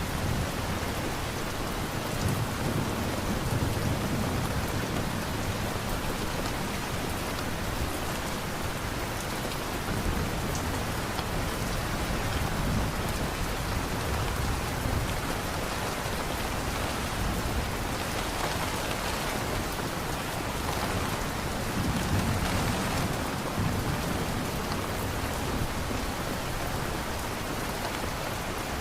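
Steady heavy rain falling, with low rumbling swells rising and fading a few times.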